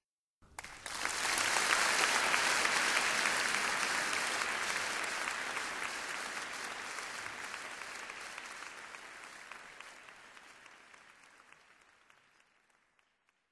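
Concert audience applauding as a live song ends: the clapping rises quickly about a second in, then slowly fades away to nothing near the end.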